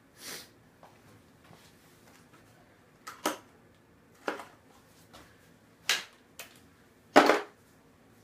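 Metal hand tools clinking and clattering as they are handled: about six short, sharp knocks at irregular spacing, the loudest near the end.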